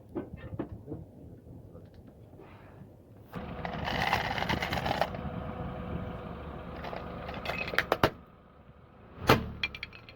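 A car rolling slowly over snappers (bang snaps), its engine and tyres making a steady noise, with sharp cracks as the snappers pop under the tyres: a quick cluster near the eighth second and the loudest single crack about nine seconds in.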